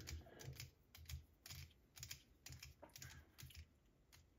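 Faint, irregular light clicks and taps of a small screwdriver and hard plastic parts being handled, while a screw is driven into the hitch of a 1/18-scale RC truck's plastic rear bumper.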